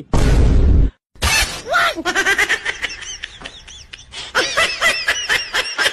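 A loud crash or shatter sound effect lasting about a second. Then comes a run of laughter, rising high near the end, as an edited comedy gag effect.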